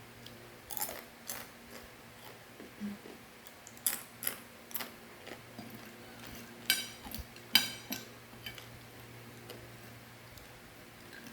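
Crispy fried macaroni snack crunching as it is bitten and chewed, in short scattered crackles with pauses between, over a faint steady low hum.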